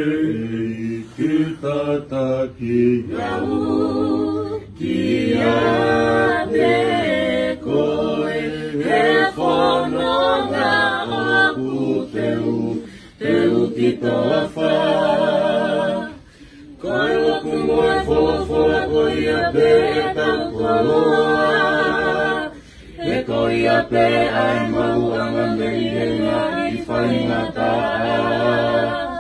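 A group of voices singing a hymn in Tongan unaccompanied, in long held phrases with short breaks about sixteen and twenty-three seconds in.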